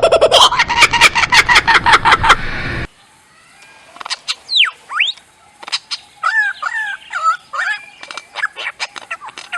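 Lyrebird singing: a loud, rapid run of repeated clicking notes that cuts off abruptly about three seconds in, followed by quieter sweeping whistles and a varied series of calls.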